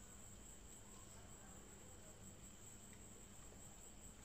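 Near silence: room tone with a faint steady high-pitched hiss.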